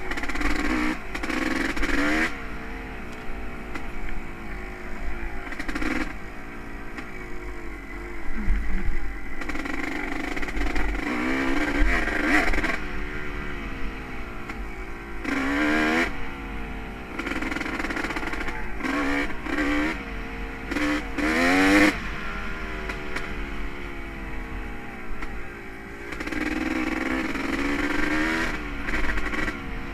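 Honda CR250R's two-stroke single-cylinder engine being ridden, its pitch rising and falling over and over as the throttle is opened and closed, with several sharp revs.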